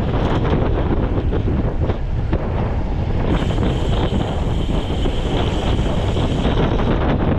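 Heavy wind buffeting on the microphone of a bicycle moving at speed: a steady, loud, rumbling rush. About three seconds in, a faint high steady tone joins for about three seconds.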